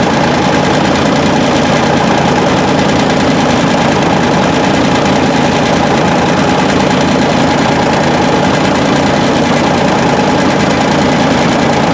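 Ford 2000 tractor engine running steadily and driving a Moro vane pump that is building positive air pressure in a Better-bilt 1100 honeywagon tank. It makes a loud, even mechanical drone with a steady whine.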